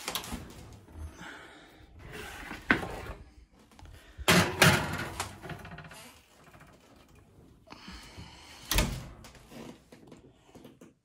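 Oven door of an electric range being opened, a metal pizza pan clattering and scraping onto the oven rack, and the door shut with a thunk near the end.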